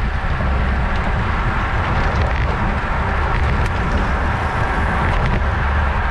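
Steady wind rumble over a bike-mounted camera's microphone while riding in a road-race pack at about 20–26 mph, with road and tyre noise under it.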